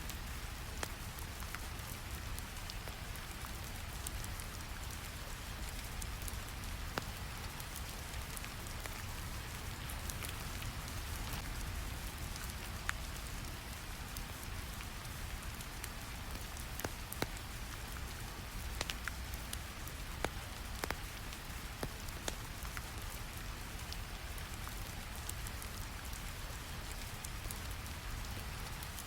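Steady rain ambience layered with a deep, even brown-noise rumble, dotted with scattered sharp crackles from a fire.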